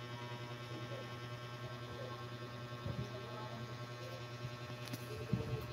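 Steady low electrical hum with a faint buzz, with a couple of soft knocks near the end.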